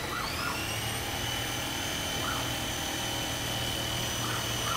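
A motor's high-pitched whine that rises in pitch over the first half second, then holds steady, over a low hum. A few faint short chirps sound above it.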